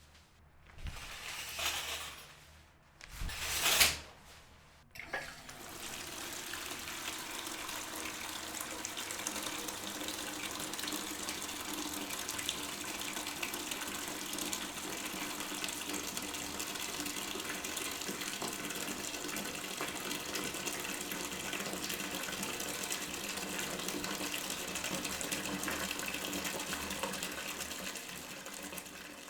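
Water running steadily from a tap into a sink or container, starting about five seconds in. Before it come two short, loud bursts of noise, the second the loudest.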